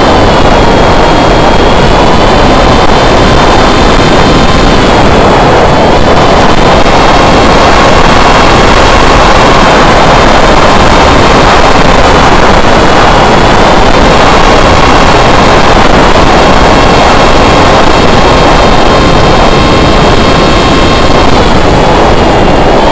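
Electric motor and propeller of an S800 FPV flying wing whining in flight over heavy wind rush on the onboard microphone, very loud and steady throughout. The whine's pitch drops and recovers a few times as the throttle changes.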